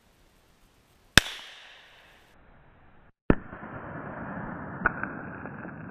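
A Glock 43 9mm pistol fires a single shot: one sharp report that rings away over about a second. About two seconds later a second sharp crack is heard from near the targets as a target bursts apart, followed by steady noise and a smaller crack.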